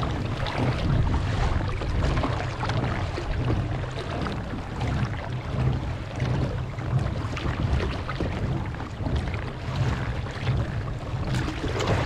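Wind buffeting the microphone in a steady, uneven low rumble, with water rushing and splashing against the hull of a fishing kayak moving through choppy sea.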